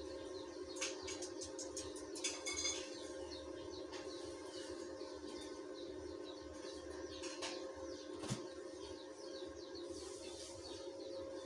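Small birds chirping over and over above a steady hum, with a few sharp clicks, the loudest about eight seconds in.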